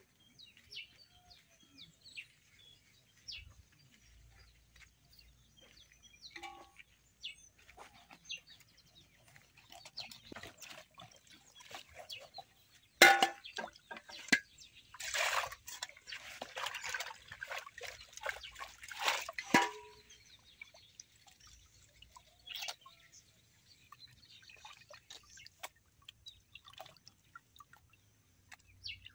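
Water splashing and dripping in metal basins as raw fish is washed by hand. There is a sharp clank of metal on the basin about halfway through, followed by several seconds of heavier sloshing.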